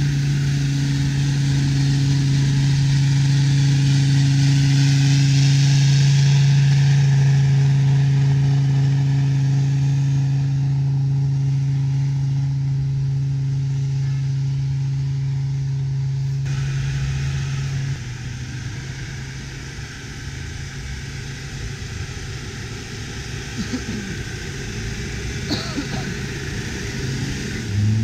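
Land Rover Discovery TD5's five-cylinder turbodiesel engine running at steady high revs as the truck ploughs through deep snow, with a hiss of churned snow and tyres over it. About two-thirds of the way through the engine note drops away, and near the end it rises again as the truck revs.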